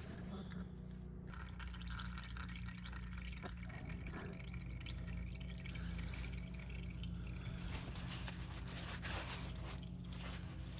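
Warm engine oil trickling and dripping from the RX1's oil reservoir drain into a drain pan, with a steady low hum underneath.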